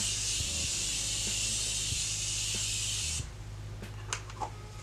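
Morphe setting spray misted onto the face: one continuous hiss of spray for about three seconds that stops abruptly, followed by a couple of faint ticks.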